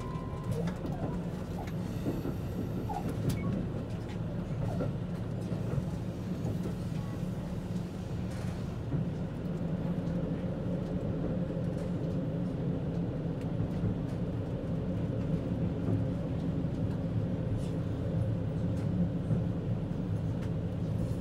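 KiHa 85 series diesel railcar heard from inside the front car: a steady low engine drone over wheel and rail rumble as the train runs slowly into the terminal platform on arrival.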